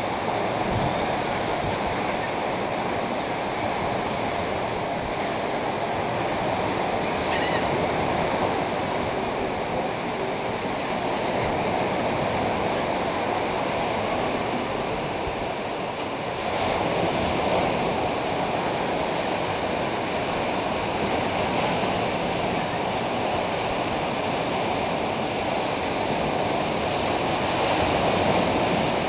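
Steady rush of Gulf surf breaking along the beach, heard from high above the shore.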